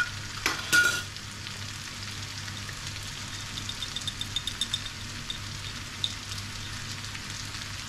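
Onions, chickpeas and sea samphire frying in a pan with a steady sizzle. A couple of sharp clicks in the first second, and a run of light clinks from a teaspoon in a glass spice jar around the middle.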